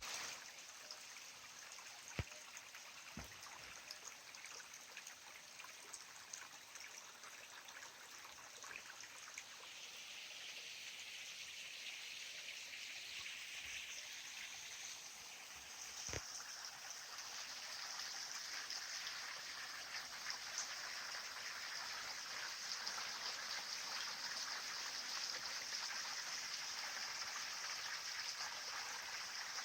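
Small mountain stream trickling and babbling over rocks, a steady flow that grows louder and brighter about halfway through. Three sharp clicks sound over it, two in the first few seconds and one about halfway.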